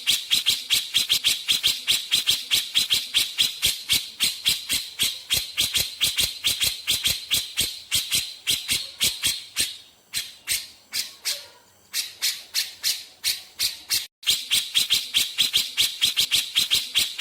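Grey-cheeked bulbul (cucak jenggot) calling in a rapid burst of sharp, high, rattling notes at about five a second. The burst thins and pauses briefly about ten seconds in, then resumes.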